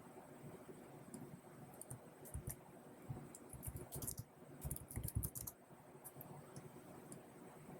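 Typing on a computer keyboard: a quick run of key clicks, densest between about two and five and a half seconds in, over a faint steady background hum.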